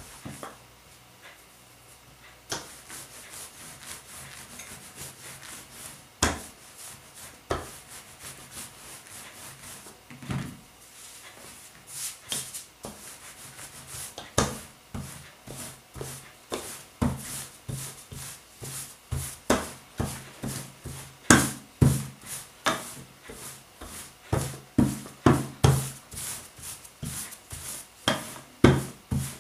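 Wooden rolling pin with rotating handles rolled back and forth over dough on a table: a rubbing rumble with a knock at each stroke. The strokes are few and soft at first, then come at about one to two a second and grow louder in the second half.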